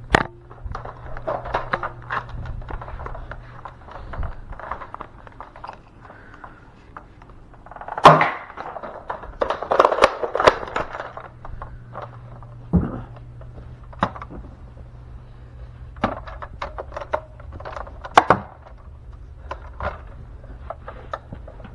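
Close handling noise: scattered clicks, knocks and rustles of objects and plastic being moved about. There is a loud thump about eight seconds in, followed by a few seconds of busier rattling, over a faint low hum.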